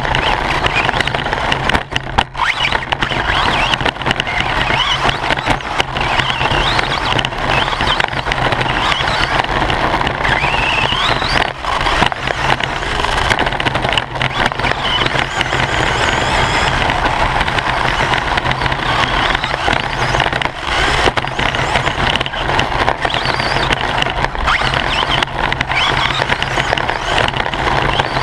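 RC short course buggy driving hard on a dirt track, heard from inside its body shell: its motor and drivetrain whine up and down with the throttle over a constant rattle and tyre noise, broken by frequent knocks from bumps, jumps and landings.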